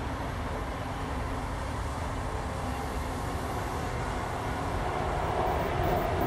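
ICE high-speed train running past on the line, a steady rolling noise of wheels on rail.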